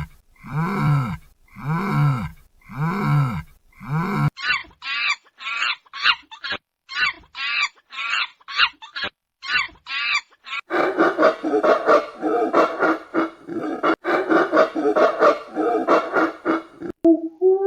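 Animal calls from three different clips: first a call repeated about once a second, each rising then falling in pitch; then a run of quick, short, high calls; then from about ten seconds in, a dense chorus of many overlapping calls.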